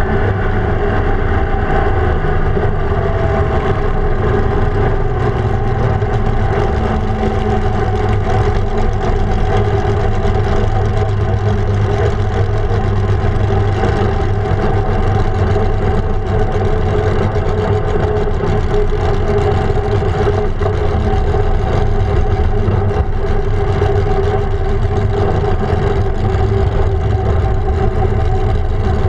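Holden grey motor straight-six in a vintage-style dragster, running at low road speed. The engine note eases down in pitch over the first few seconds, then holds steady and even.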